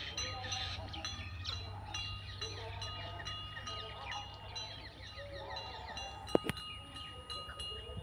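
Many small birds chirping and chattering over a low steady hum, with a few long steady high tones running through it. A single sharp knock about six and a half seconds in.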